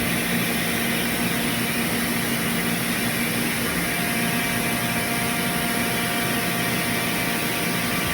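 CNC machining center running: a steady mechanical hum with a few steady whining tones, a higher tone coming in about halfway through.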